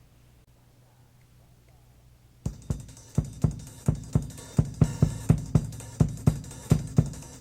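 Drum kit on a cassette-taped FM broadcast of a live 1970s jazz-fusion concert: after about two and a half seconds of faint tape hiss and hum, the drums come in with a steady pattern of hits, about four a second.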